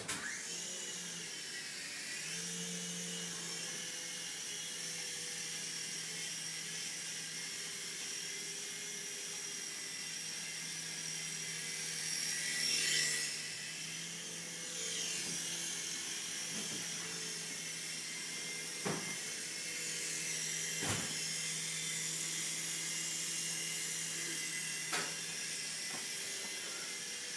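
Small toy RC helicopter's electric motor and rotor starting up and running, a steady high-pitched whine over a low hum. The pitch shifts and peaks in loudness about halfway through, and a few sharp clicks come in the second half.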